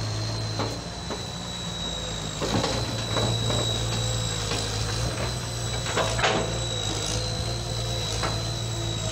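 Tracked excavator's diesel engine running steadily, with a thin high whine over it, while its arm pushes into a tree; a few sharp cracks and snaps break in, about a third of the way through and again in the second half.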